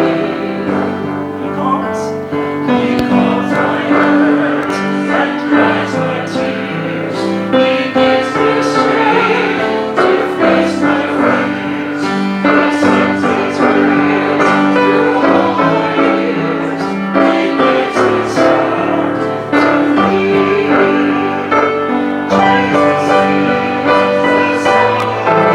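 Worship song: voices singing with piano accompaniment.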